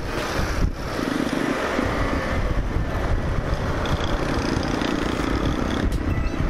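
Motorcycle riding at road speed: the engine runs steadily under heavy wind buffeting on the microphone.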